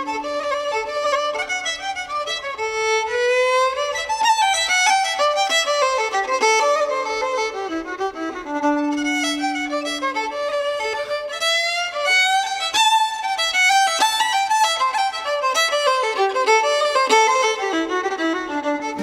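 Fiddle playing a tune in quick runs of notes, with a few long held low notes near the start and about halfway through.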